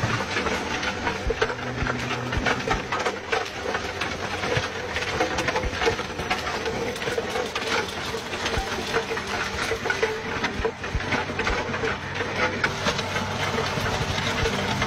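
Tractor-mounted rotavator tilling stony ground: the tractor engine runs steadily under load while stones clatter and knock continuously against the spinning rotor.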